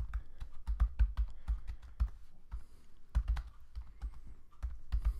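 Typing on a computer keyboard: a quick, irregular run of key clicks as a line of text is typed.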